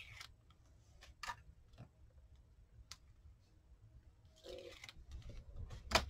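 Faint handling of paper and card: a few light taps and rustles as a painted card page and the pages of a kraft-paper journal are moved on a craft mat, with a louder rustle late on and a sharp tap near the end.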